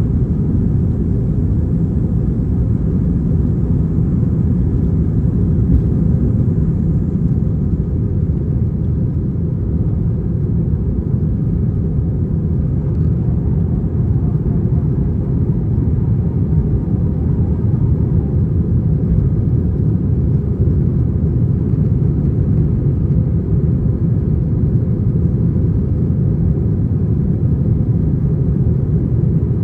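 Cabin noise inside an Airbus A321-231 during takeoff: a loud, steady, low rumble from its IAE V2500 engines and the rushing air.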